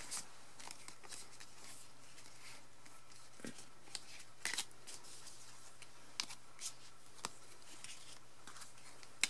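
Glossy photocards being picked up, slid across each other and set down on album pages: scattered soft taps and light rustles, with a sharper card tap near the end.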